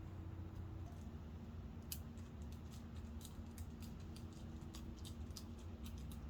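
A kitten clawing at a tree: quick, irregular scratchy clicks that start about two seconds in, over a faint steady low hum.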